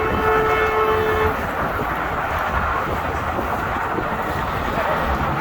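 A truck horn held on one steady note, cutting off about a second in, over the steady noise of passing highway traffic.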